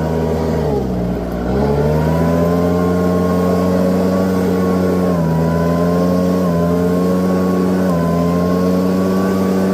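Leaf blower running hard with a steady whine, its pitch dropping and climbing back about a second in, then holding with a few small dips.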